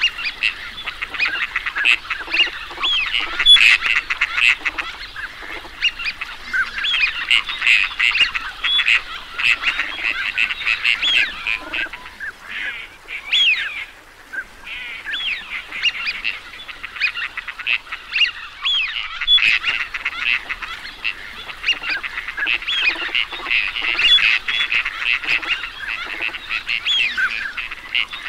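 A flock of teal calling, many short high calls overlapping almost continuously, thinning briefly about halfway through.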